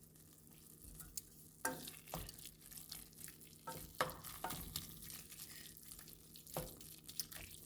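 Food frying in hot oil in a pot, sizzling with irregular sharp pops and crackles that grow frequent about a second and a half in.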